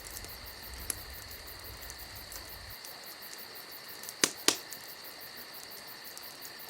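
Insects chirring steadily at a high pitch, with faint rapid ticks, and two sharp clicks a little past four seconds in.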